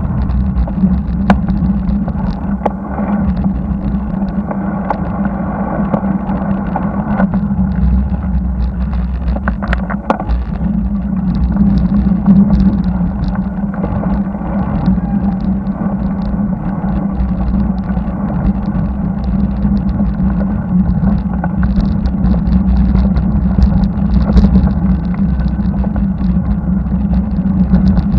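Steady road traffic of cars and trucks close by, with a constant low drone and wind rumble on a bike-mounted camera's microphone.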